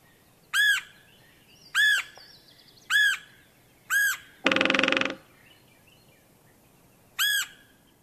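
Red-headed woodpecker: five short arched call notes spaced through the clip, and about four and a half seconds in a brief, rapid drum roll on a dead snag, its territorial drumming.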